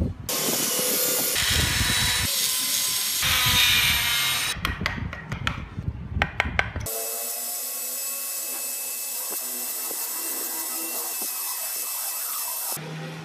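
Hand chisels and gouges scraping and cutting into small wooden wheels, with a run of sharp clicks from the blade. About seven seconds in, a flexible-shaft rotary carving tool takes over, running steadily with a whine as its bit cuts tread grooves into a wooden wheel.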